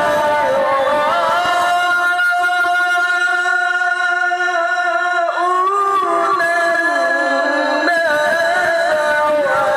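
A male qari reciting the Quran in the melodic tilawah style over a microphone and loudspeakers, holding long ornamented notes. His pitch shifts about five seconds in and again near eight seconds.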